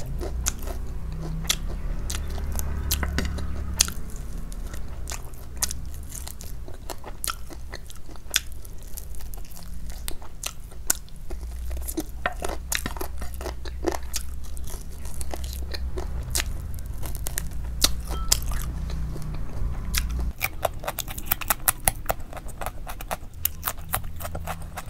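Close-miked chewing of a mouthful of rice eaten by hand, with many small wet mouth clicks. Near the end, crunchy bites into a raw cucumber slice.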